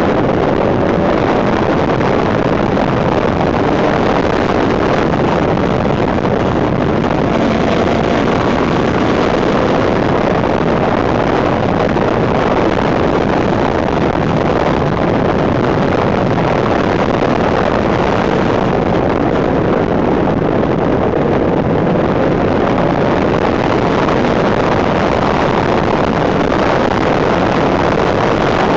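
Heavy wind rushing over a handlebar-mounted camera's microphone on a moving Suzuki GSX 750 F Katana. Beneath it, the bike's inline-four engine note is faintly heard, its pitch drifting slowly up and down with the throttle.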